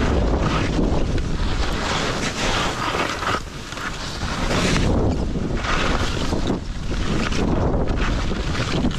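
Skis hissing through deep powder snow during a fast run, the rush swelling and easing with each turn about every second or two. Heavy wind buffets the microphone throughout.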